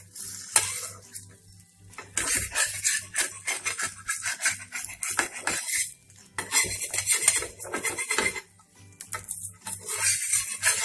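Metal spatula scraping and tapping against a flat dosa pan in short repeated bursts, working the dosa loose from the pan.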